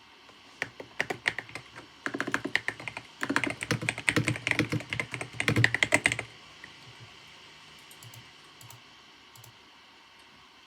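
Typing on a computer keyboard: a run of rapid keystrokes from about half a second in, stopping abruptly at about six seconds, after which only a few faint clicks sound over a soft steady background hiss.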